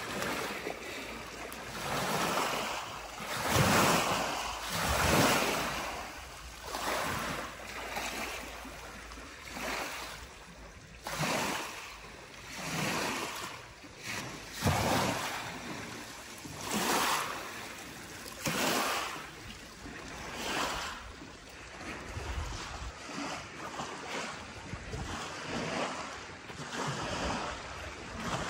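Small lake waves washing in on a pebble shore, a hissing wash that swells and fades every second or two.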